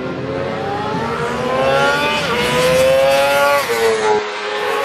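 Racing motorcycle engine accelerating hard through the gears: the pitch climbs, dips at an upshift a little past two seconds in, climbs again and drops at another shift near the end before rising once more.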